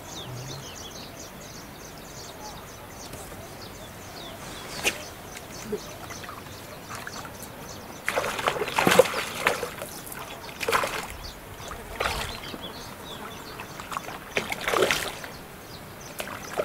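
A hooked fish splashing and thrashing at the water's surface while it is played on a float rod, in a series of sudden loud splashes from about halfway through.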